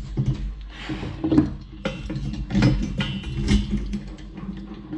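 Steel chain clinking and a ratchet chain binder clicking as a chain is cinched around a steel beam, in irregular clanks and clicks over a steady low hum.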